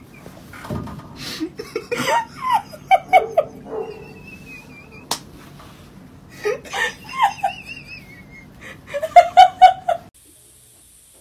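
A person laughing hard in three bouts of rapid, repeated bursts, about two seconds in, around six and a half seconds in and near the end, stopping abruptly at about ten seconds.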